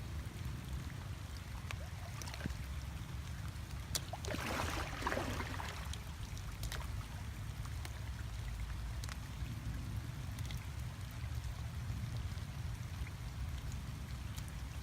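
Water splashing and trickling, with a louder splash about four seconds in and scattered small clicks, over a steady low rumble.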